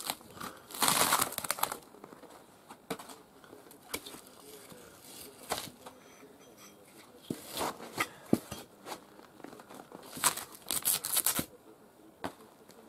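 Birch bark being pried and torn off birch logs with a hatchet. There is crackly tearing of bark strips about a second in and again near the ten-second mark, with scattered short knocks and taps of the blade between.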